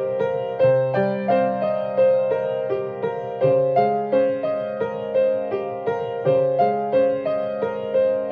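Solo piano playing a gentle original piece: notes struck at an even pace of about two a second over held bass notes.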